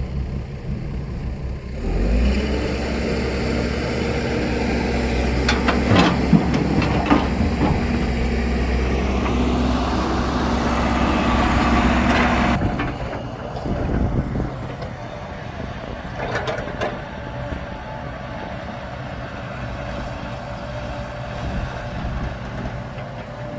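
Heavy diesel engine running loud and close from about two seconds in, dropping off suddenly about halfway through, then running on more quietly with a few knocks and clanks.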